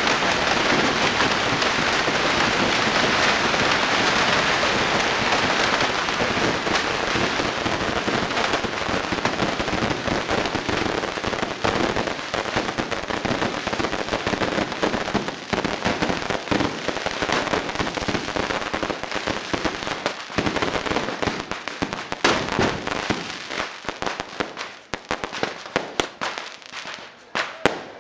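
Bottle rockets fired en masse from a beehive rocket launcher, a dense, unbroken barrage of bangs and whizzing. After about twelve seconds it thins into separate sharp cracks and pops, with short lulls between them near the end.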